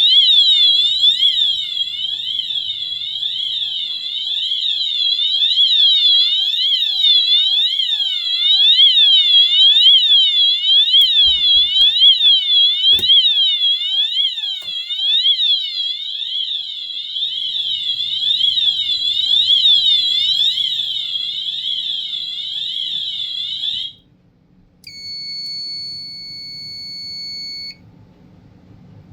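Wheelock MT multitone fire alarm horns sounding their siren tone, a fast rise-and-fall sweep that repeats evenly and cuts off suddenly near the end. After a brief gap, a steady high beep sounds for about three seconds.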